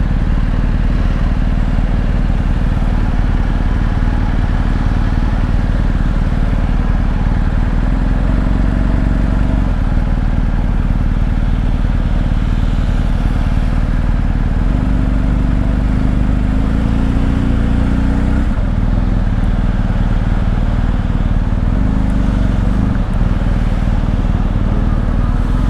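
BMW R1250 GS Adventure motorcycle's boxer-twin engine running steadily at road speed under a rush of wind noise, with the engine note shifting about halfway through.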